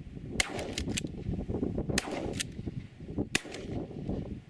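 Strong wind buffeting the microphone in a low, steady rumble, with several sharp clicks: three close together about half a second in, two near two seconds and one later.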